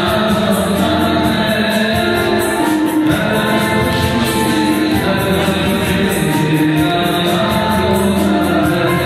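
A man singing a song into a handheld microphone, holding long notes without a break.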